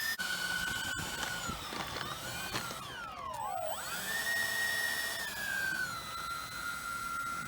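Electric ducted fans of an RC scale Boeing 737 Max 8 model, a high whine that shifts in pitch with the throttle. About three seconds in, two fan tones glide steeply down and sweep back up. They then hold and ease down slightly near the end. There is a sharp click about a second in.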